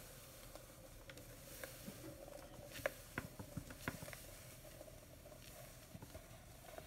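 Faint, scattered light taps and soft rustles, mostly in the middle seconds, from a cat moving about inside a bag, with a faint steady hum underneath.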